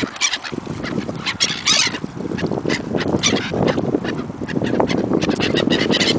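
A flock of birds calling over each other, many short overlapping squawks and honks, as they crowd in for food.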